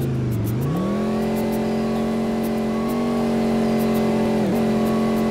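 Bus engine pulling up the revs about half a second in, then running steady under load, with a brief dip in revs near the end.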